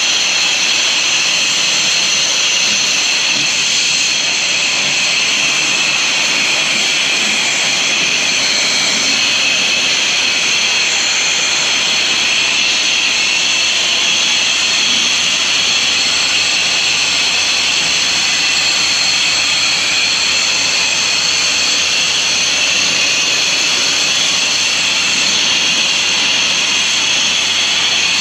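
Pressure washer running steadily, with a loud, unbroken hiss and drone.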